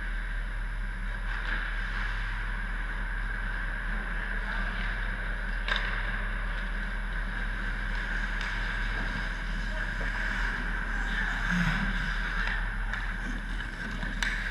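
Indoor ice rink ambience: a steady mechanical hum and hiss, with skates scraping on the ice and occasional sharp clacks of hockey sticks and pucks, one about six seconds in and a few near the end as play comes toward the net.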